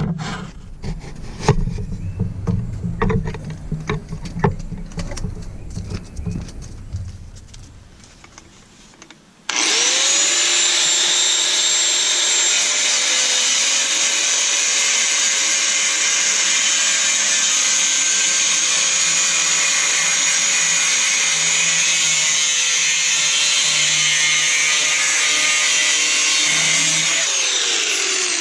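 Scattered knocks and clatter, then about ten seconds in an angle grinder with a cut-off disc starts suddenly and runs at a steady whine, cutting into the truck's rusted rocker panel sheet metal. Near the end it is let off and winds down with a falling whine.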